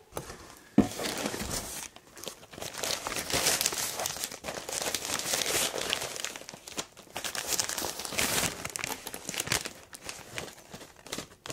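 Packaging from a softbox lighting kit crinkling and rustling as it is handled and pulled apart during unboxing, with a sharp knock about a second in.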